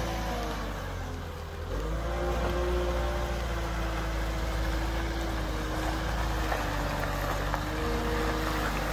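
CAT 908M compact wheel loader's diesel engine running as the loader raises its boom and tilts the bucket. The engine note dips about a second in, then picks back up and holds steady.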